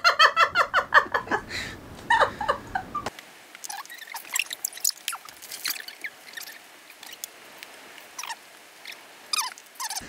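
Laughter for about the first two seconds. Then the sound drops suddenly to faint, scattered light clicks and taps of wooden Jenga blocks being handled on a table.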